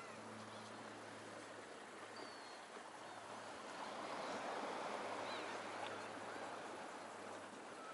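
Seaside outdoor ambience: a steady rushing hiss that swells louder about halfway through, over a low steady hum, with a few faint high chirps.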